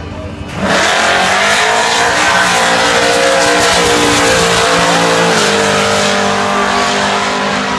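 Drag cars, a 1969 Chevy Nova among them, launching hard off the start line about half a second in. The engines rev at full throttle and rise in pitch, with a drop and climb about five seconds in as a gear is changed.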